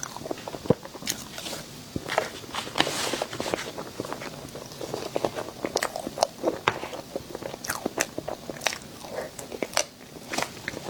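Close-miked eating of a sweet dessert: crunchy bites and chewing, with many sharp crackles scattered throughout.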